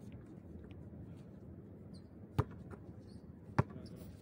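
A basketball hitting the court twice, two sharp thuds a little over a second apart, over a steady low background rumble.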